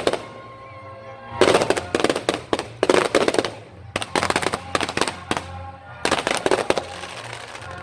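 Fireworks going off in rapid crackling clusters, about five volleys of sharp reports with short gaps between them, over music.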